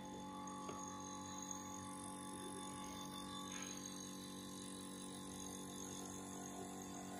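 Hermetic refrigerator compressor, rigged as a vacuum pump, running with a faint steady hum as it pulls vacuum on a car A/C evaporator circuit.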